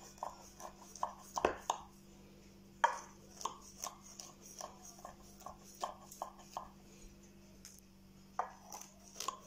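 Knife cutting through the crisp baked kadayıf shreds of a set muhallebi dessert in a glass baking dish: a run of short cutting strokes, two or three a second, thinning out in the last few seconds.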